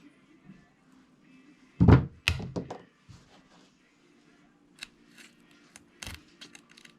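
A loud thunk about two seconds in, followed at once by a quick run of knocking clatters and then scattered light clicks: small RC truck parts and tools handled and set down on a workbench.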